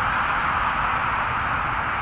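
Twin-engine jet airliner's turbofan engines at takeoff thrust during the takeoff roll, a steady, even rushing noise over a low rumble.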